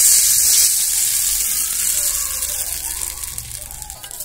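Hot tempering oil with mustard seeds, curry leaves and dried red chillies sizzling as it is poured onto wet peanut chutney: a loud hiss that slowly dies away.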